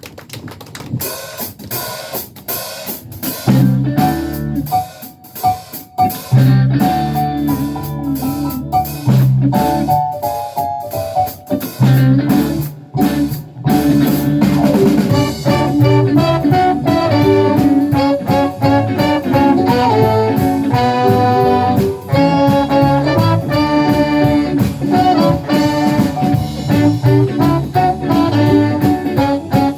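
Live band starting a song: the drum kit opens with a beat, bass comes in about four seconds later, and from about halfway the full band plays a steady groove with guitar.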